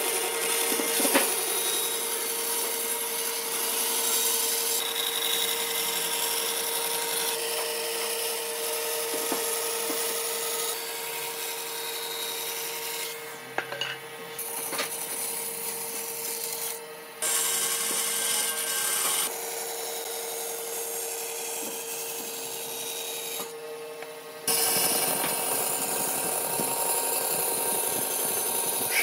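Band saw running and cutting through a wooden board, the blade rasping steadily in the wood over a steady hum. The level jumps abruptly several times, and the hum drops out about three-quarters of the way through.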